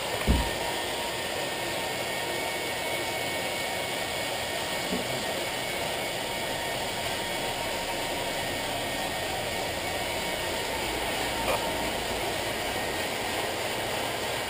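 Bicycle turbo trainers whirring steadily as several riders pedal their clamped road bikes, with one low thump just after the start.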